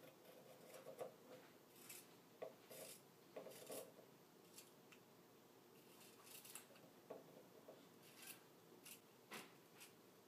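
Scissors snipping through t-shirt fabric along the sleeve seam, cutting the sleeve off: faint, irregular snips, some in quick runs.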